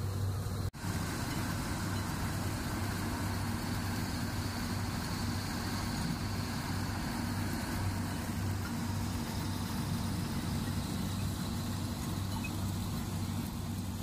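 Combine harvester running steadily while threshing pearl millet: a constant low engine hum under the even noise of the machinery. The sound drops out for an instant about a second in.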